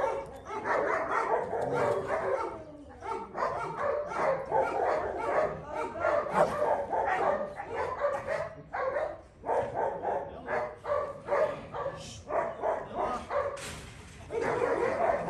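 Several dogs barking and yelping over one another in quick, overlapping calls, as dogs do when excited at a feed.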